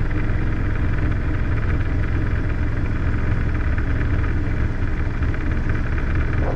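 Steady drone of a Robinson R22 helicopter's piston engine and rotor inside the cabin, in low forward flight as it picks up speed.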